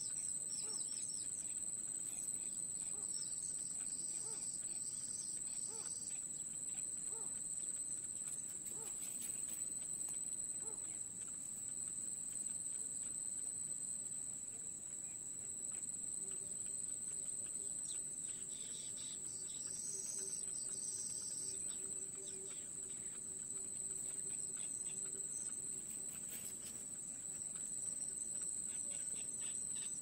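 Steady high-pitched insect trilling, like a cricket, with short bursts of chirping a few seconds in and again about two-thirds of the way through.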